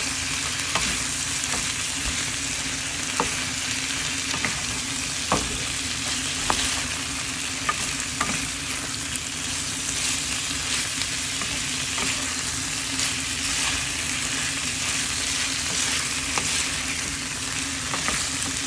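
Napa cabbage, chicken and potatoes sizzling in a frying pan as they are stir-fried, with the wooden spatula tapping and scraping against the pan every second or so over a steady low hum.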